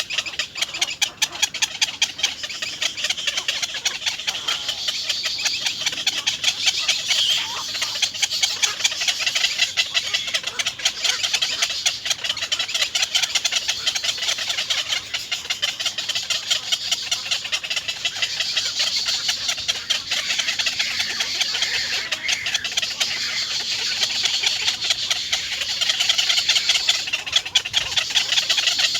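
Dense, continuous high-pitched animal chirping made of rapid pulses, many a second, running without a break.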